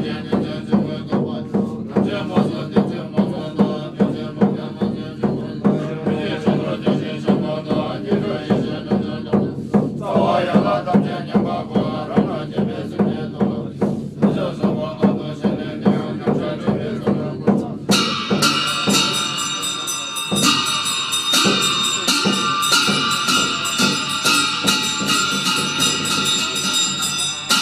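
Tibetan Buddhist monks chanting prayers together in low, droning voices over a steady beat about twice a second. About two-thirds of the way through the chant gives way to clashing cymbals and ringing bells.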